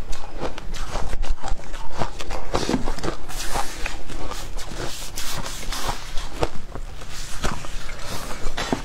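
Shaved ice crunching, several irregular crisp crunches a second: a metal spoon stirring and scooping through it in a glass bowl, and chewing of mouthfuls of the ice.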